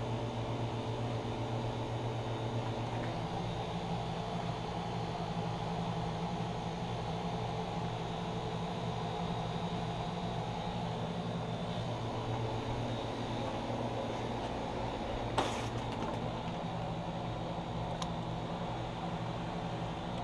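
Steady mechanical hum with a few constant low tones, like a fan or air-conditioning unit running, with one sharp click about fifteen seconds in.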